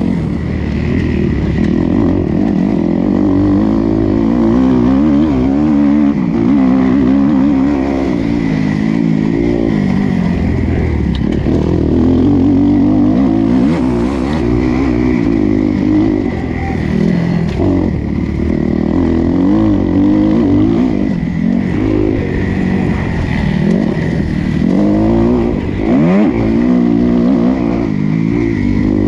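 Motocross bike's engine heard close from the onboard camera, revving hard and dropping off again and again as the bike is ridden round a dirt track, with a sharp rise in revs near the end.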